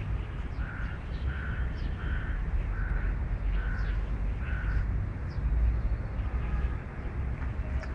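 An animal calling: about six short, evenly spaced calls roughly 0.7 s apart, which stop about four and a half seconds in, over a steady low rumble.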